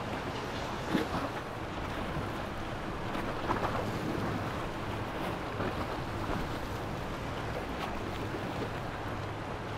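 Monterey 295 cruiser passing slowly under engine power: a steady low engine hum under a haze of water and wind noise, with a few brief sharper sounds.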